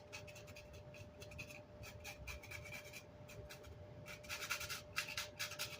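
Rapid scraping strokes against amplifier grill cloth, knocking old glue and chipboard residue off it; the strokes come in quick runs, thickest about four to five seconds in.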